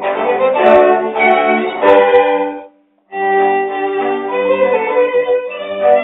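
Instrumental background music that drops out briefly about halfway through, then resumes.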